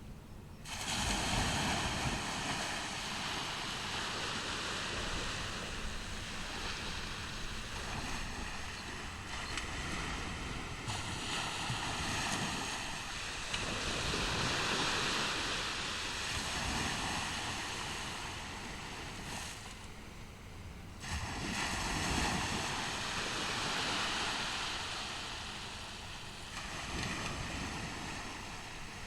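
Ocean surf: waves breaking and washing up a beach in a continuous rush. It swells suddenly about a second in and again about two-thirds of the way through, rising and ebbing between.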